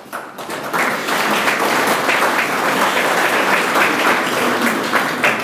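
Audience applauding, many hands clapping; the applause swells over the first second and then holds steady.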